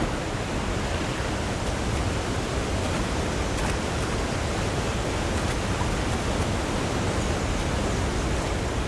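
Fast-flowing river water rushing steadily, a constant even noise with no breaks.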